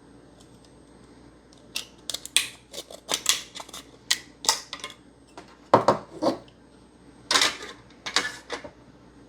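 Handling clatter of an Xbox One S power supply being worked out of its internal case: an irregular run of sharp clicks, scrapes and rattles of metal and plastic parts, starting a couple of seconds in.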